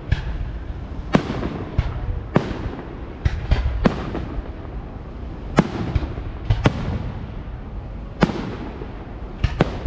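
Fireworks going off: about a dozen sharp bangs at irregular intervals, several in quick clusters, each with a short echoing tail, over a steady low rumble.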